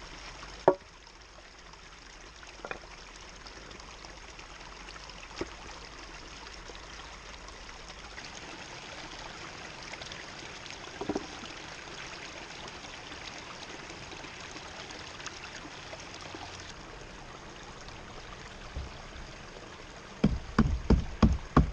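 Creek water flowing steadily, with a few isolated knocks. Near the end comes a quick run of loud knocks as boards are worked in under the footbridge.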